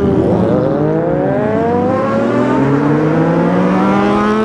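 Motorcycle engine accelerating, its pitch dipping briefly about half a second in, then climbing steadily for several seconds.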